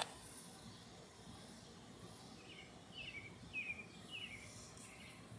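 A bird calling with four short, high, downward-slurred chirps about half a second apart, faint over quiet outdoor background noise.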